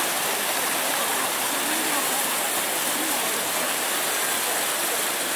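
Steady rushing of a flowing stream.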